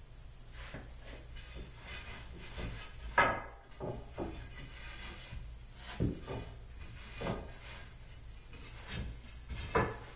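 Day bed slats being handled and laid onto the frame's rails: a series of wooden knocks and clatters, the sharpest about three seconds in, with several more spread through.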